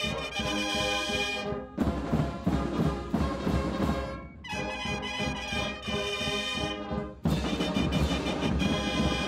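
Military brass band playing a quick march: trumpets, trombones and low brass over bass drum beats, in loud phrases with short breaks between them.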